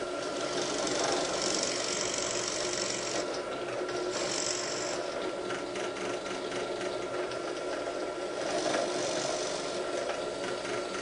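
Benchtop drill press running with a steady motor hum, its bit cutting into wood three times: about a second and a half in, around four seconds, and near the end. It is boring recesses so the screw heads sit below the surface.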